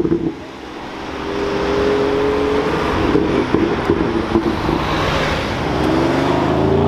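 Performance car engines accelerating away through the exhausts, pitch rising as they rev, with a few sharp exhaust pops around the middle and another engine revving up near the end. The first is a BMW M2's turbocharged straight-six pulling away.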